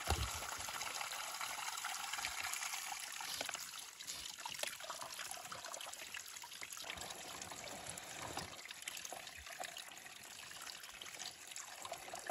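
Water trickling and splashing steadily from a culvert pipe onto rocks, with a soft plastic water bag held under the flow to fill it.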